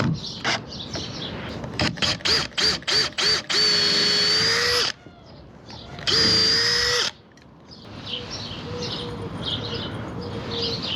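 Power drill worked in about half a dozen quick trigger bursts, each whine rising as it spins up, then run steadily twice, about a second and a half and then about a second, drilling holes into the cabover framing.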